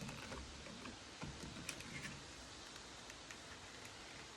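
Light plastic clicks and small knocks as a smoke alarm and its mounting bracket are handled and pushed together, mostly in the first two seconds, then only a faint steady hiss.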